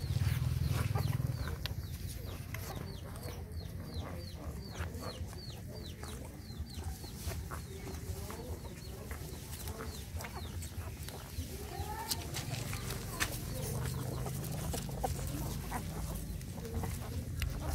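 Chickens clucking, with a run of quick high peeping chirps, about three a second, a few seconds in. A low hum sits under the start and again near the end.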